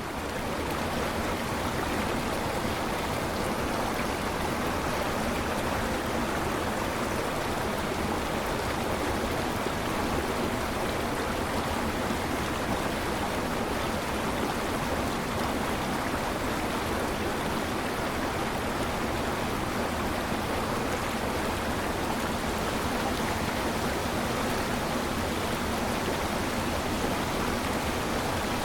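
Waterfall: water falling and splashing steadily in an even, unbroken rush.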